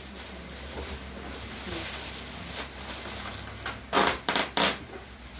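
Cardboard box being opened by hand: faint rustling of handling, then three short, loud rips of tape and cardboard flaps being pulled open about four seconds in.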